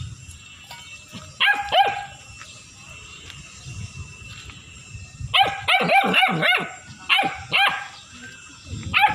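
German shepherd puppy barking in high, sharp yips. Two come about a second and a half in, then a quick run of about six from about five seconds, then two more a little later.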